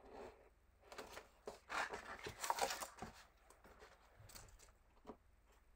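Box cutter blade slicing through paper along the edge of a wooden cradle panel, a scratchy cutting sound that grows loudest in the middle of the stroke, with small clicks of the blade around it.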